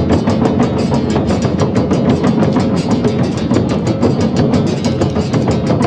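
Acoustic Brazilian folk ensemble (fife, gaita, berimbau and zabumba) playing, led by a fast, even pulse of percussion strokes, several a second, over sustained tones. The strokes ring on in the long echo of a large conical concrete cooling tower.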